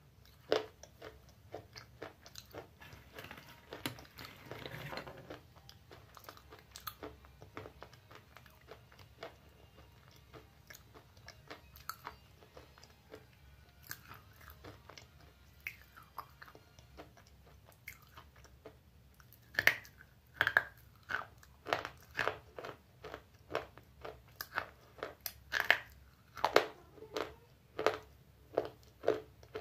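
Close-up chewing and crunching of a white Bablu-brand slate pencil. Light, scattered crunches come first; from about twenty seconds in there is a steady run of sharper, louder crunches, roughly two a second.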